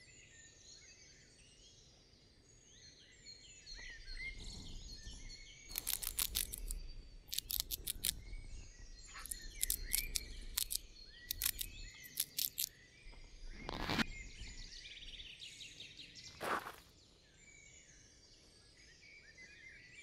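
Forest birdsong, with several bursts of rapid scratchy clicking in the middle: a cartoon mouse gnawing through a rope. Then come two louder single sounds a couple of seconds apart.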